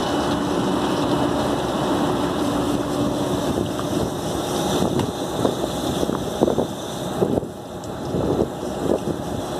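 Water from a hose jet spraying onto the condenser coils of an SKM air-cooled chiller during coil washing, a steady hiss over a low mechanical hum.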